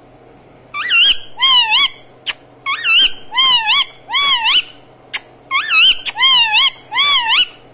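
Male rose-ringed (Indian ringneck) parakeet calling: a run of about nine short warbling notes, each rising and falling in pitch, in three quick bursts. A few sharp clicks fall between the calls.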